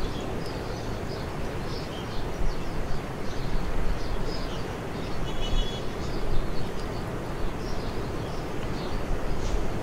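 Outdoor background noise: a steady low rumble with many short, high bird chirps scattered through it.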